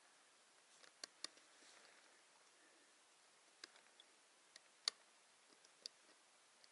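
Faint, scattered clicks and small knocks, about six in all, the loudest about five seconds in: a metal marten trap and its chain being handled as a caught marten is taken out of a trap box on a tree.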